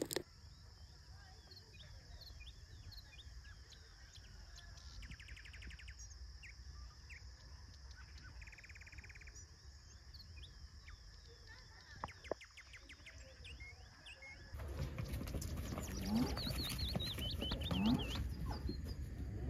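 Rural outdoor ambience: small birds chirping, with two quick buzzy trills, over a steady high hiss. About two-thirds through it turns louder, with a low rumble and more bird song.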